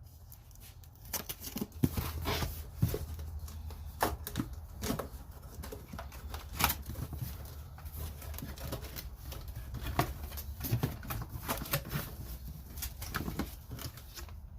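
Cardboard box and packaging being opened and handled: irregular clicks, taps and rustles over a low steady hum.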